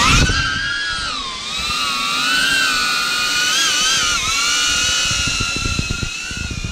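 DJI Avata FPV drone's ducted propellers spinning up for takeoff with a rising whine. It then settles into a steady high-pitched multi-tone whine that wavers slightly in pitch as the drone climbs and manoeuvres.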